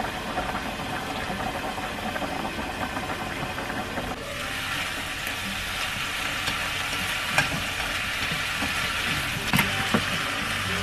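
Home stovetop cooking: a dense bubbling rattle from the pans on the hob, then from about four seconds in, chicken and onion sizzling in an open frying pan, with a few sharp clicks of chopsticks against the pan near the end.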